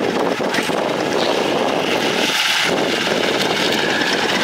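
Engine of a small Mahindra mini truck running as the truck drives slowly past close by, a steady engine-and-tyre noise.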